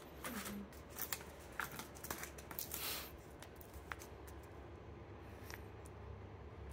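Crinkling and tapping of vacuum-sealed plastic steak packages as they are lifted from a cardboard box and handled. It is busiest in the first three seconds and quieter after.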